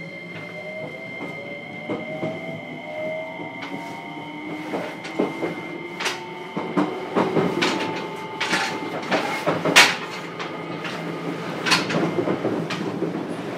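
Interior running sound of a JR Kyushu 303 series electric train in motor car MoHa 303-1: the Hitachi IGBT VVVF inverter and traction motors whine in rising tones as it gathers speed. From about five seconds in, the wheels clack and knock over rail joints, growing louder and more frequent.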